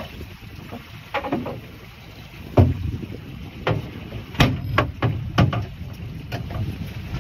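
Irregular knocks and thumps against a small fibreglass boat's side as a line is hauled in by hand over the gunwale, the loudest about two and a half seconds in. Steady wind and water noise runs underneath.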